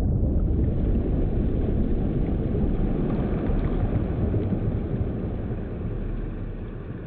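Low, muffled rumbling noise with no high end, steady and then fading away over the last two seconds.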